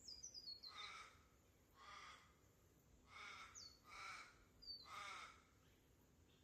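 Faint bird calls: five harsh, caw-like calls about a second apart. Short high whistles, each sliding down in pitch, come at the start and between the later calls.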